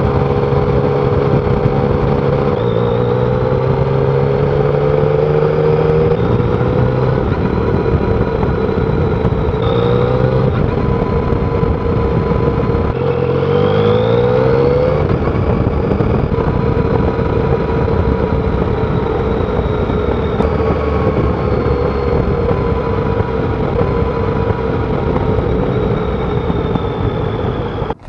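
Yamaha Tracer 900's 847 cc inline three-cylinder engine through its stock exhaust, running under way over a steady rush of wind and road noise. The engine note shifts a few times and climbs for about two seconds near the middle.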